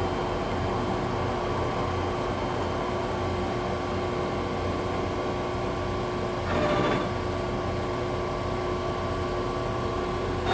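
Steady electric hum of a Profitmaster 22 x 120 gap bed engine lathe's drive running, holding a few fixed tones, with a brief clatter about six and a half seconds in as a control lever is shifted.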